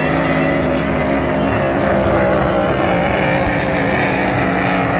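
Racing powerboat engines running at speed as hydroplanes race past, a steady, loud drone with no breaks.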